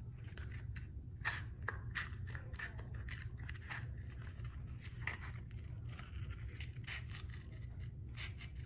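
Scissors snipping through a painted cardboard toilet paper roll, a quick series of short cuts as the tube is cut in half.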